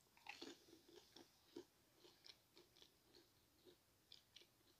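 Faint close-up chewing of a fried jalapeño cheddar bite: a string of small, quick mouth clicks, closest together in the first second or so, then thinning out.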